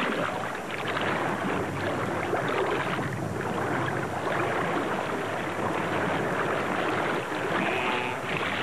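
River water splashing and churning as a wildebeest struggles in the grip of a Nile crocodile.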